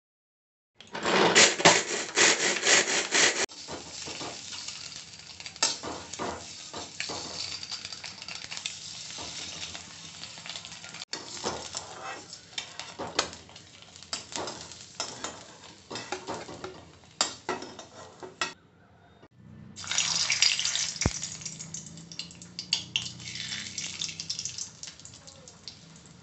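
A hand-pulled string chopper whirs in quick repeated strokes as it chops onion, ginger and garlic. Then boiled eggs fry in oil in a kadai with a steady sizzle and scrapes and clicks of a metal spatula. Near the end, a loud burst of sizzling comes as a bay leaf and whole spices hit the hot oil, and it slowly dies down.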